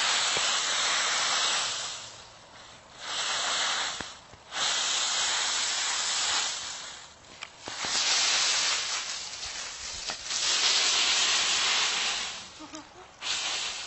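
Dry fallen leaves crackling and rustling as a small dog burrows and bounds through a deep leaf pile, in about five loud bursts of a second or two with short lulls between.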